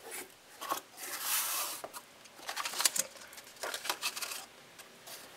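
A cardboard box being opened and its paper manual handled: scattered rustling, scraping and light clicks.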